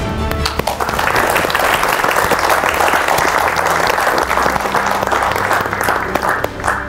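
Crowd applauding. The clapping swells in about a second in and dies away near the end.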